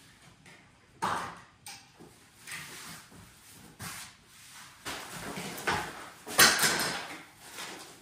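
Irregular rustling and knocking of things being handled, loudest about six and a half seconds in.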